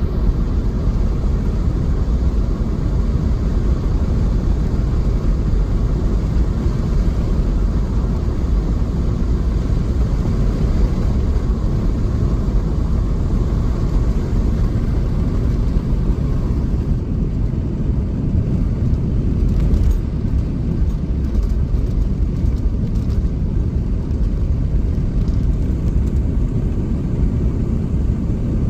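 Steady low rumble of road and engine noise from a moving car, heard from inside the vehicle.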